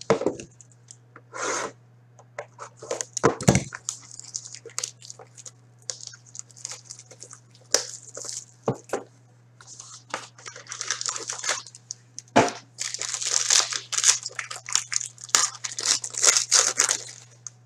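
Hands tearing open and crinkling the wrapping and packaging of a 2016-17 hockey card box, in irregular rustles with scattered clicks and a couple of knocks. A steady low hum runs underneath.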